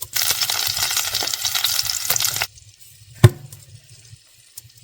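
Honey brown sugar sausages frying with a loud, hissing sizzle that cuts off suddenly about two and a half seconds in. A single sharp knock follows about a second later.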